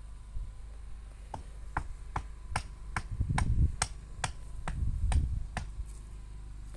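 A rapid, even series of about a dozen sharp clicks, roughly two and a half a second, starting about a second in and stopping near the end. Two bursts of low rumble come in partway through and are the loudest part.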